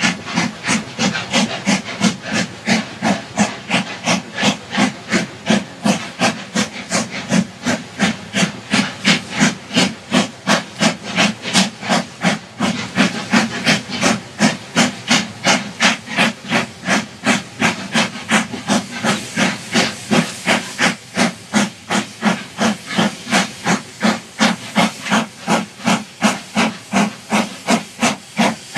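Industrial tank steam locomotive hauling a goods train of hopper wagons, its exhaust chuffing steadily at about three beats a second over a hiss of steam.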